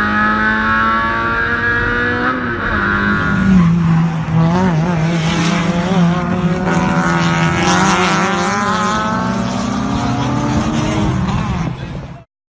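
Race car engine running on track, its pitch falling as the car slows, then climbing again as it accelerates, with a wavering squeal of tyres through a corner in the middle. The sound cuts off suddenly near the end.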